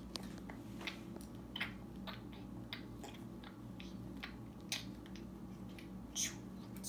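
Light plastic clicks and taps of small Lego pieces being handled on a tabletop, scattered and irregular, a few sharper than the rest, over a steady low hum.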